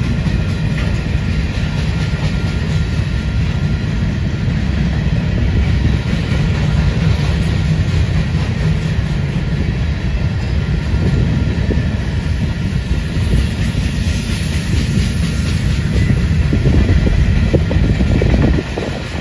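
Freight train cars rolling past at speed: a steady, loud rumble and clatter of steel wheels on the rails. It grows a little louder, then drops abruptly just before the end.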